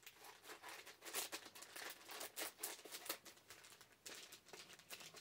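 Packaging being handled, rustling and crinkling in a quick, irregular run of light crackles.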